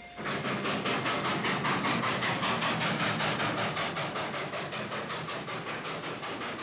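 Steam locomotive running, its exhaust chuffing in a fast, even rhythm of about six beats a second. It starts abruptly and grows a little quieter over the second half as the train comes to a stop.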